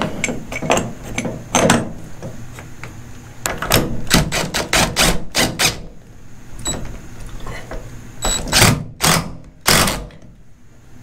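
DeWalt cordless impact driver hammering camper-shell clamp bolts tight against the truck bed rail, in short rattling bursts: a cluster about four to six seconds in, then a few louder ones near the end. Metal clanks and clicks of the clamp being fitted come in between.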